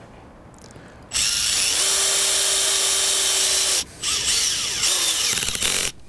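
Makita cordless drill-driver driving long screws through a flag hinge into a uPVC door without pilot holes. It makes two runs: the first starts about a second in and lasts nearly three seconds with a steady whine, and after a brief stop a second run of about two seconds follows.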